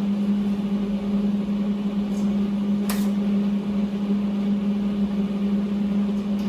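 Welder running a steady arc on sheet-steel floor pan, an even hiss over a constant electrical hum.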